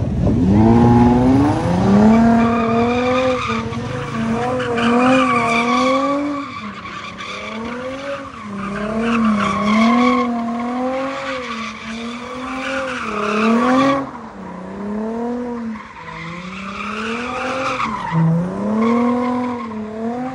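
Toyota Mark X's V6 engine revving hard as the car drifts in circles, its revs rising and falling over and over, with the tyres squealing and skidding.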